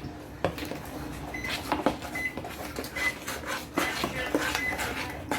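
Kitchen handling sounds: scattered knocks and clicks of utensils and containers being moved, with a few brief faint high tones.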